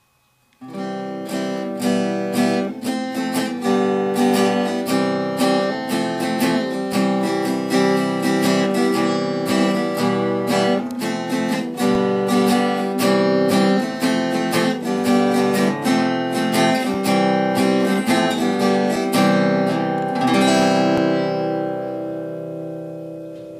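Acoustic guitar music, quickly strummed, ending on a chord that rings out and fades away.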